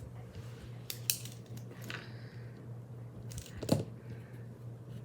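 Light clicks and rustles of small items being handled, with a few sharp ticks, the loudest nearly four seconds in, over the steady low hum of a fan.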